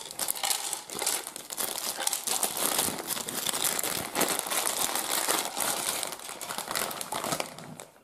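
Clear plastic wrapping crinkling continuously as it is pulled off by hand, dying away just before the end.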